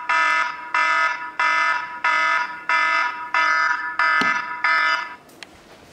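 iPhone alarm ringing: a bright chime of several tones repeating about every two-thirds of a second, eight times, then cutting off about five seconds in as the alarm is stopped. A light knock of the phone being handled about four seconds in.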